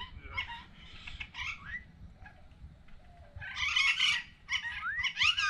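Small parrots screeching: a run of harsh calls that slide up and down in pitch. The loudest come in two bursts in the second half.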